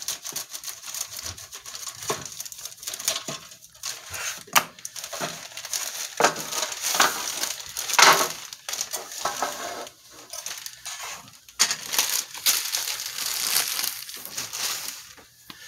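Clear plastic bags holding plastic model kit sprues crinkling and rustling as they are handled, with sharp clicks of the plastic parts knocking together.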